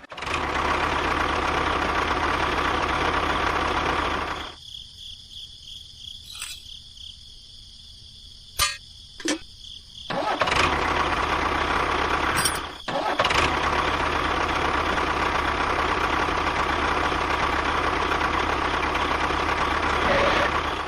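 A small motor running steadily. It stops about four seconds in, a few sharp clicks sound in the lull, and it runs again from about ten seconds in.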